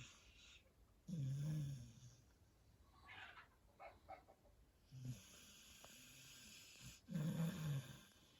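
A sleeping dog and a man snoring. Loud snores come about a second in and again near the end, with a weaker one around the middle and short, quieter breathing noises between.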